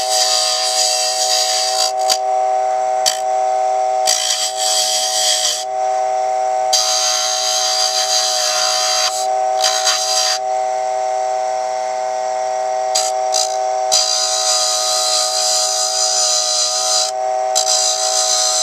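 Dremel Moto-Lathe Model 700's small electric motor running with a steady whine, while a hand gouge cuts into the spinning wooden dowel. The cutting makes a hissing scrape that comes and goes in stretches of one to three seconds as the tool touches the wood.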